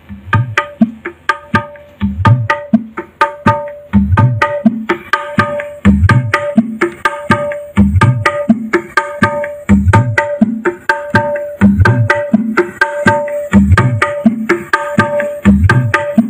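Percussion-heavy music with a steady beat of deep drum thumps and sharp strikes, played loud through a loudspeaker driven by a home-built TPA3110 class-D amplifier fed over Bluetooth.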